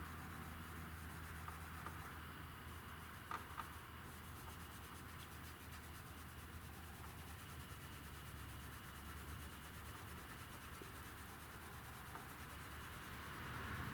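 Faint back-and-forth rubbing of a cloth working scratch-repair compound into car paintwork, with a couple of light ticks about three and a half seconds in.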